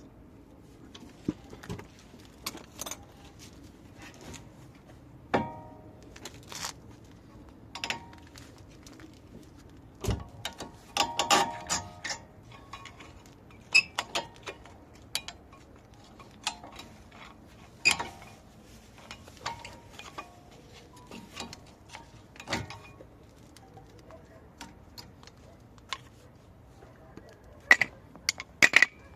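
Intermittent metal clinks and knocks of hand tools and brake caliper parts being handled, a few of them ringing briefly.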